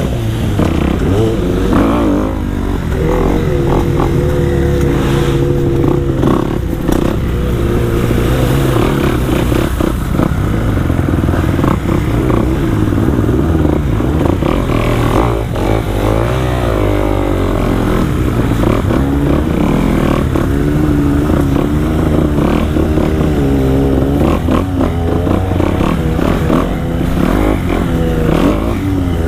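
Dirt bike engine running under the rider, revving up and down again and again as it rides a rough trail, with scattered clattering knocks from the bike over the ground.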